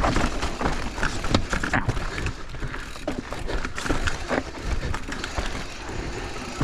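Mountain bike rattling down a rocky trail: many quick knocks and clicks from tyres striking rock and the chain and frame rattling, over a low wind rumble on the microphone.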